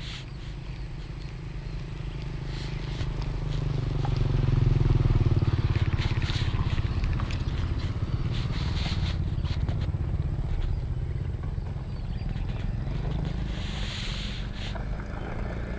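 A motor vehicle's engine running steadily, growing louder to a peak about five seconds in and then easing off as it passes by.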